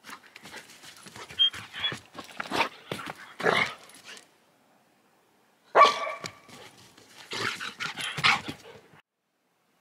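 A dog digging and scratching at dry forest ground with its paws, scraping and scuffing the dirt, with barking; the loudest, sharpest bark comes about six seconds in.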